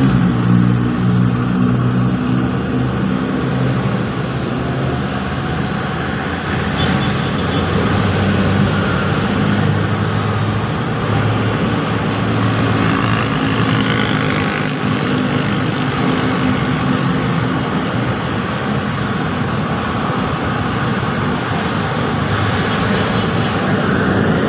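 Steady road traffic: cars and motorcycles passing, their engines humming and fading as each goes by.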